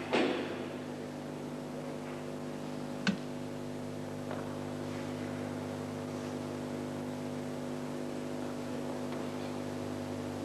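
A steady electrical hum with many overtones, of the kind an old video recording carries, held at an even level throughout. A short noisy burst comes right at the start and a single sharp click about three seconds in.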